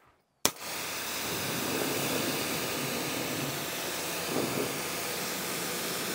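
AR630tss electric pressure washer rinsing foam off a car with a rinse nozzle. It starts suddenly about half a second in, then holds a steady hiss of high-pressure water spray.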